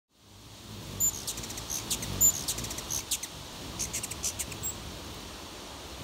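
Ruby-throated hummingbirds at a feeder giving a quick scatter of short, high chips and squeaky twitters, the loudest about a second in and just after two seconds.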